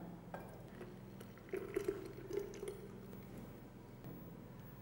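Thick whipped curd pouring from a measuring jug into a glass jar: faint soft plops and squelches, clustered from about one and a half to nearly three seconds in.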